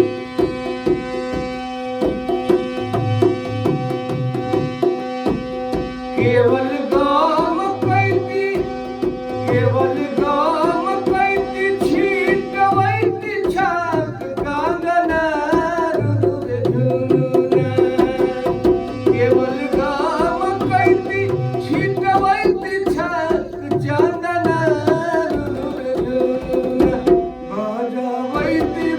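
Tabla-led Indian music: deep drum strokes in a steady rhythm over a sustained drone, with a gliding melody line coming in about six seconds in.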